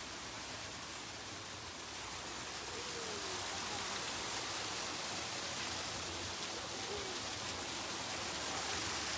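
Water from an artificial rock-wall waterfall splashing into a shallow pool, a steady hiss that grows slowly louder as the microphone nears it.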